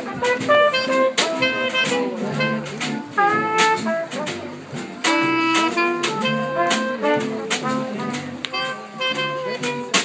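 Small jazz combo playing: trumpet and clarinet carrying the melody over plucked upright bass, electric guitar and a drum kit keeping a steady beat on the cymbals.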